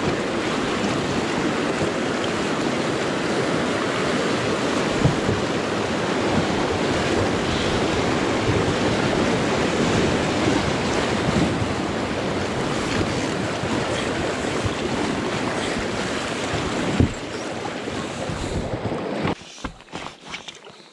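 Whitewater rushing and splashing around a small inflatable raft drifting through a rapid: a loud, steady churning of water. It cuts off a little before the end, leaving quieter handling sounds with a few light clicks.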